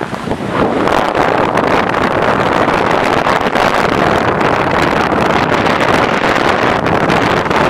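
Steady rush of wind over the microphone mixed with skis sliding and scraping over packed snow during a downhill run.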